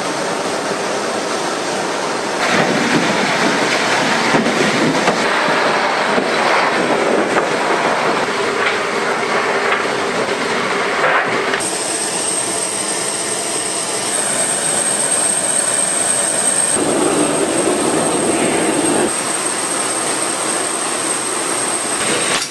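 Steady mechanical rumble and clatter from heavy machinery, in several stretches that change abruptly. A steady high whine comes in about halfway through and stays to the end.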